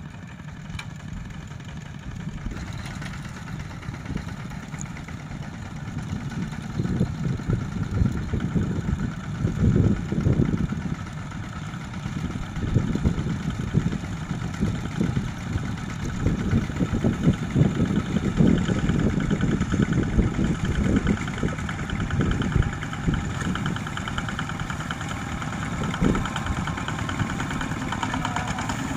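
Single-cylinder diesel engines of two-wheel walking tractors running as they haul trailers of rice sacks. The engine noise grows louder a few seconds in and rises and falls unevenly after that.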